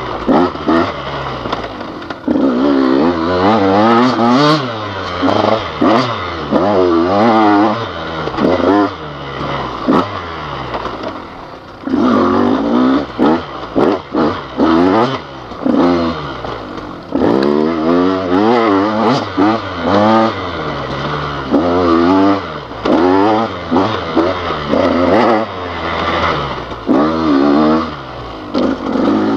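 Dirt bike engine revving up and falling back again and again as the throttle is worked on rough ground, with scattered knocks and clatter from the bike.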